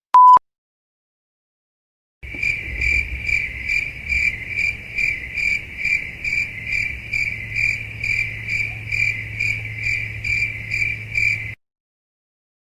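A brief, loud beep right at the start, then after a moment of silence a crickets-chirping sound effect, the 'awkward silence' meme sound: an even, rhythmic chirping about twice a second over a low hum, for about nine seconds, cutting off abruptly.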